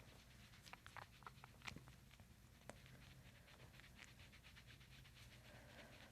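Near silence: a low steady room hum, with a few faint clicks and rustles between about one and three seconds in.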